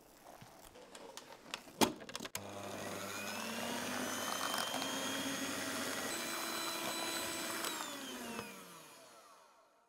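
Electric hand mixer beating banana bread batter in a glass bowl. After a sharp click, the motor starts about two and a half seconds in and runs steadily. Near the end it is switched off and winds down, falling in pitch.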